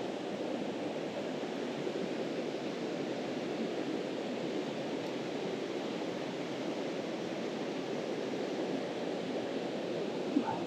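Steady rush of a mountain stream's flowing water, an even low roar, with one small knock shortly before the end.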